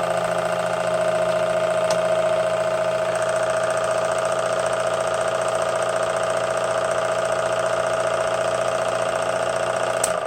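Sherline mini lathe running steadily with a steady motor whine. A sharp click comes near the end.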